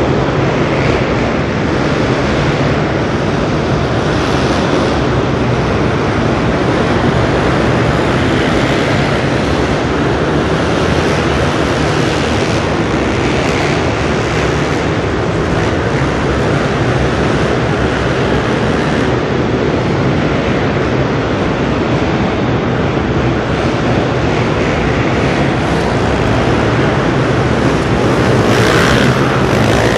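Several motocross bikes' engines running hard round a dirt track inside a large indoor hall, a dense steady din that gets louder near the end as a bike comes close beneath.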